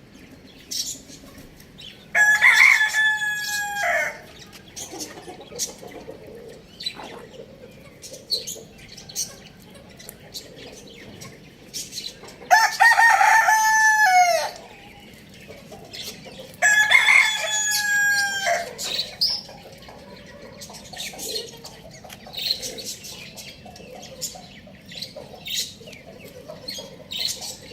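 Rooster crowing three times, each crow about two seconds long, with hens clucking softly in between.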